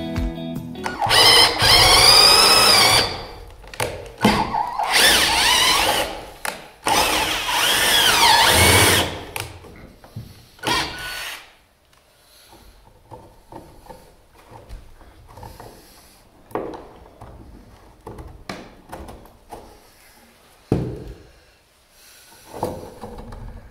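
Cordless drill run in several bursts, its motor whine rising and falling under load as it drives into a wooden stud. After that come quieter handling clicks and taps, with one sharper knock near the end.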